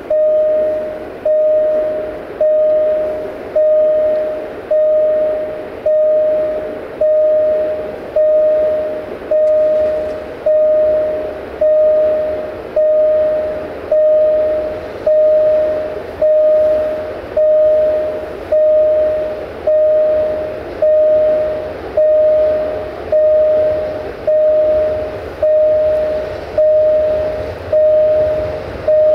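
Railway level-crossing warning bell ringing steadily, one stroke about every second, each ring fading before the next, as a train approaches. Beneath it, the low rumble of the approaching LDE2100 diesel freight locomotive grows faintly.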